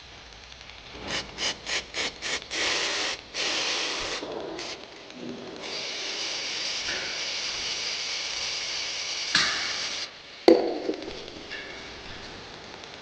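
Hand scraping or rubbing in a bike workshop: about six quick strokes, roughly four a second, then longer steady scraping. A sharp knock with a brief ring comes near the end.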